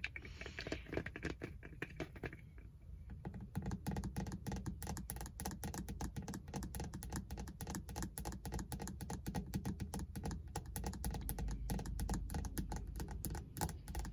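Long fingernails tapping quickly on the plastic housing of a car's rearview mirror, a dense run of light clicks. The taps are sparser for the first few seconds, then come many to the second.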